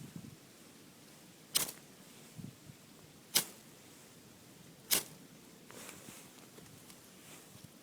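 Three sharp clicks or snaps, spaced about a second and a half to two seconds apart, over a quiet background.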